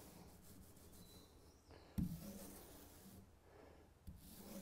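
Faint swishing of a small foam paint roller spreading wet epoxy bilge paint over the inside of a dinghy hull. A single sharp knock comes about two seconds in, and a fainter click near the end.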